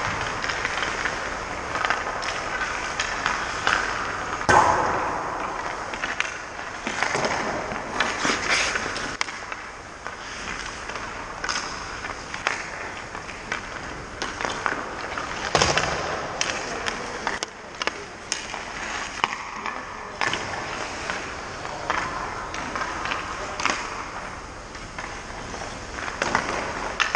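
Ice hockey practice: skate blades scraping and carving on the ice, with repeated sharp cracks of sticks striking pucks and pucks hitting goalie pads or the boards. The loudest cracks come about four and a half and fifteen and a half seconds in.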